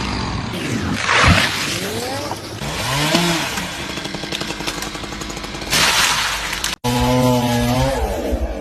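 Chainsaw running, its engine revving up and down, with louder rushing noise about a second in and again near six seconds. The sound cuts off abruptly just before seven seconds, and a steadier pitched drone follows.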